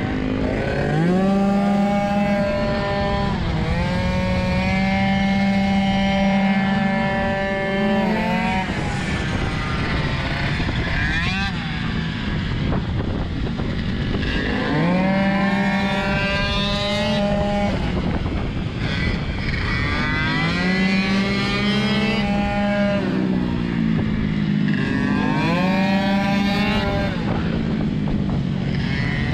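Tuned Piaggio Zip SP two-stroke scooter engine at full throttle on track laps: the revs climb quickly and then hold at one steady pitch along each straight, as the variator keeps them there, then drop away for the corners, several times over, with wind rush on the helmet-mounted camera.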